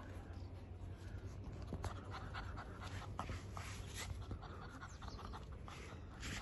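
Black Labrador puppy panting, with soft scuffing and short clicks scattered through.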